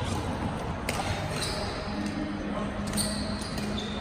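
Badminton rally: a racket strikes the shuttlecock with a sharp crack about a second in and again about three seconds in, with sneakers squeaking briefly on the court floor after each hit.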